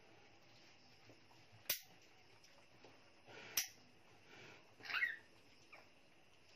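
A newborn piglet gives one short squeak about five seconds in, with two sharp clicks earlier.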